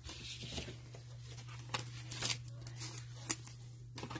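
Trading cards and plastic cello-pack wrapping being handled: a crinkly rustle in the first second, then several light, sharp clicks as cards are flicked and slid. A steady low electrical hum runs underneath.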